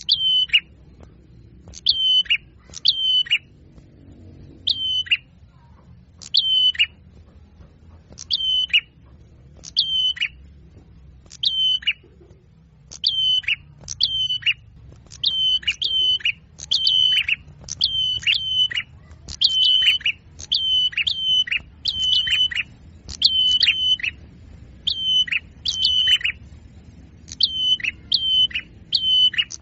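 A small songbird calling over and over: short, sharp high calls that each drop steeply in pitch, given singly or in quick twos and threes about once a second.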